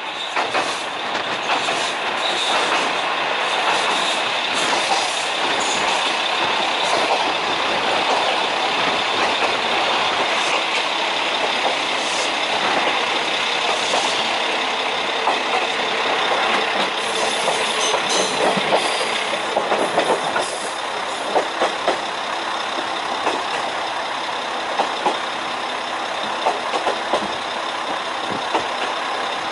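Ex-JNR diesel railcar running, heard through an open window: a steady mix of diesel engine and wheel-on-rail running noise. From about two-thirds of the way through the noise eases a little and sharp clicks and clanks from the wheels stand out, as the car rolls past the yard tracks.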